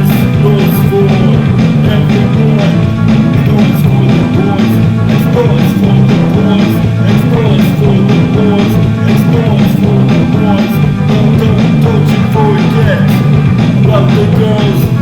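Loud, dense punk rock band music, with drums striking over a thick, shifting low end.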